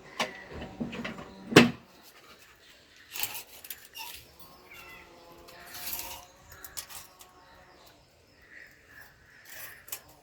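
Scattered knocks and metallic clinks of metal and tools being handled, the loudest knock about one and a half seconds in.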